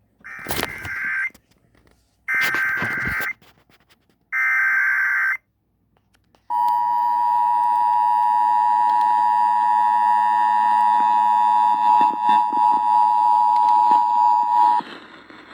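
Emergency Alert System broadcast tones. First come three short bursts of SAME data header warble, about a second each and spaced about two seconds apart. Then the two-tone EAS attention signal holds steady for about eight seconds and cuts off, announcing a warning.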